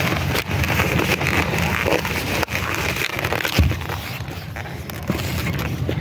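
Wind buffeting the phone's microphone in a steady low rumble, with short crackles and rubbing from latex twisting balloons being handled.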